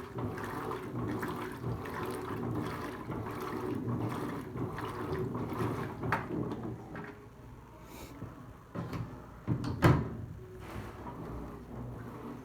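Electrolux LTC15 top-loading washing machine churning water and clothes in its tub, a steady sloshing that thins out after about six seconds. A sharp knock sounds about ten seconds in.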